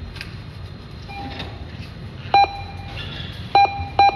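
ATM keypad beeping as buttons are pressed: short single beeps, a faint one about a second in and three loud ones in the second half, over a steady low rumble.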